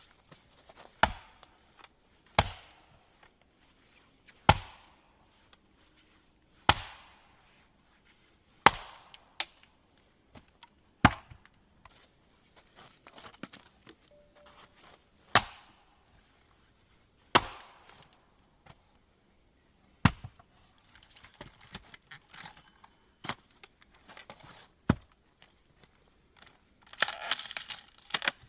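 Wood being chopped: sharp single strikes about every two seconds, each with a short ring. A brief rustling burst comes near the end.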